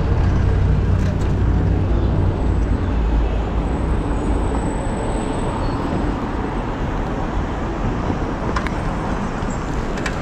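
Wind rumbling on a GoPro's microphone while riding a bicycle through city traffic, with the steady noise of road traffic around it.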